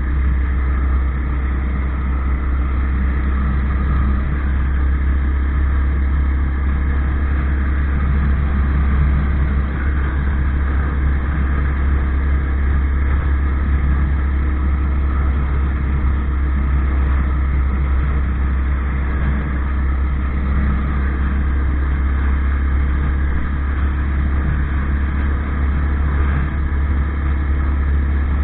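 Off-road motorcycle running steadily at low road speed, heard as a constant low rumble with an even engine hum above it.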